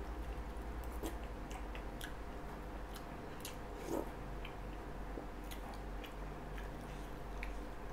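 A person eating rice cake in coconut-milk broth with a spoon: faint clicks of the spoon against the bowl and chewing, with a short sip from the spoon about four seconds in, over a steady low hum.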